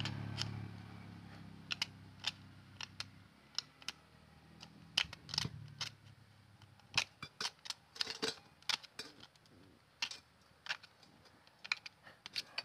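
A thin metal blade scrapes the friction face of a motorcycle disc brake pad in short, irregular strokes, picking out embedded metal grit that makes the brake squeal. A low engine hum fades away over the first few seconds.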